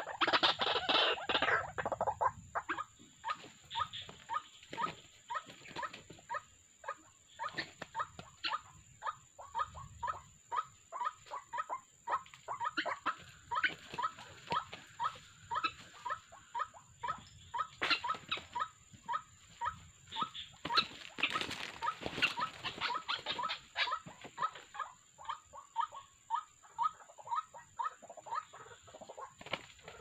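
White-breasted waterhen calls: a long, fast series of short repeated notes, about three a second. The first two seconds are louder and denser.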